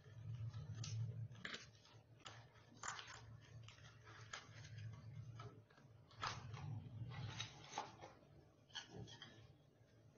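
Milk simmering in a steel saucepan on a gas burner as it is reduced: faint, irregular pops and crackles of bubbles breaking at the surface, over a low steady hum.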